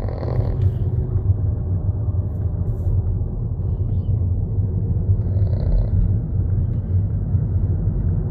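Small dog snoring under a steady low rumble of wind on the microphone.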